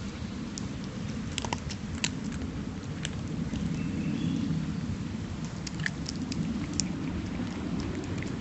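Steady low rumble of wind and handling on a phone microphone, with scattered sharp clicks of cats chewing food from bowls.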